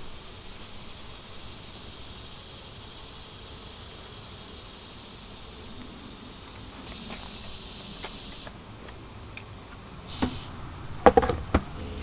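Steady high-pitched insect chorus, with a louder stretch about two-thirds of the way through. A few sharp knocks near the end.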